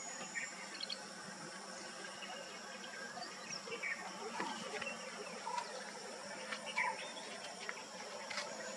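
Steady, high-pitched insect drone with scattered short bird chirps.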